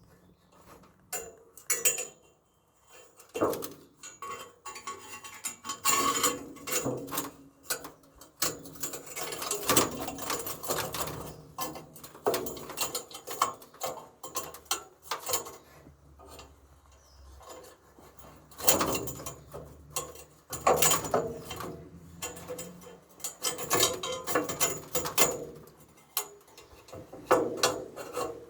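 Irregular clicking, knocking and rattling of hands working the parts of a bee hive stand into place, in quick runs of clicks with short pauses between them.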